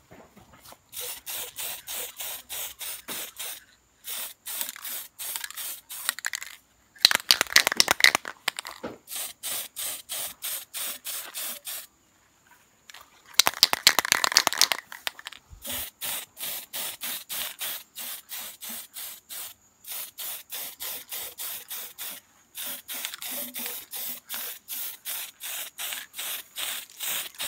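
Aerosol spray can hissing as paint is sprayed onto a motorcycle swing arm, in rapid short bursts of about four a second, with two louder stretches.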